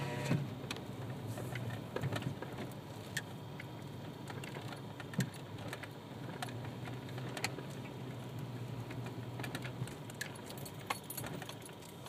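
Inside a slowly moving car: a steady low engine and road hum, with scattered light clicks and rattles throughout.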